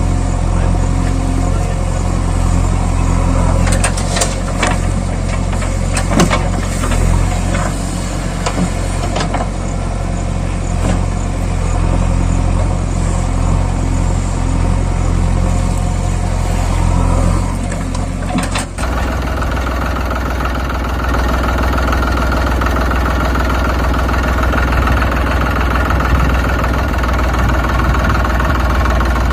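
A vehicle engine runs steadily, with scattered sharp clicks and knocks over its first half. About two-thirds of the way through it cuts abruptly to a different, steadier engine hum.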